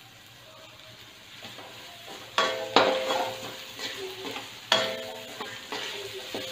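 A metal spatula clanging and scraping against a stainless steel wok as pork and vegetables are stir-fried in oil, over a soft sizzle. The first two seconds hold only the sizzle; then come several sharp, ringing clanks as the stirring gets going.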